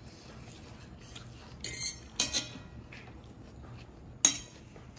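Metal cutlery clinking and scraping on ceramic dinner plates: a short scrape about a second and a half in, a couple of clinks just after two seconds, and one sharp clink, the loudest, a little after four seconds.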